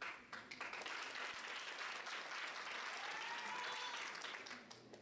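Audience applauding, starting at once and fading out near the end, with a short rising-then-falling tone over the clapping a little after three seconds in.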